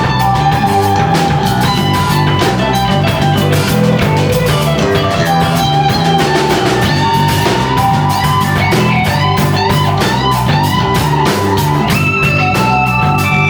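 Live rock band playing: a guitar lead line stepping and sliding between notes over bass and a drum kit keeping a steady beat. No vocals.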